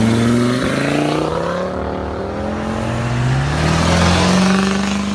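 Two vehicles accelerating past one after the other: a car's engine revving up as it pulls away, then a pickup truck's deeper engine climbing in pitch and holding steady near the end.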